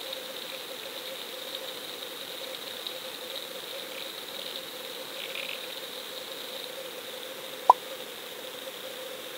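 Underwater sound picked up by a camera clipped to a fishing line: a steady hum and hiss, with one sharp pop about three quarters of the way through.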